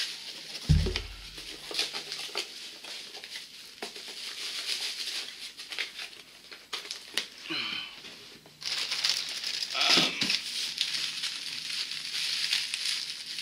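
Plastic packaging crinkling and rustling as a small plastic-wrapped item is handled, with cardboard box and packing rustles. A single sharp thump about a second in; the crinkling gets denser and louder in the last few seconds.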